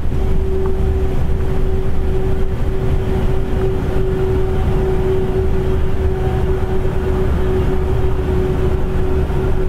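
A distant, steady horn-like drone holding one unbroken pitch over a low rumble of background noise. Its source is unidentified: it sounds somewhat like a truck horn but is not one.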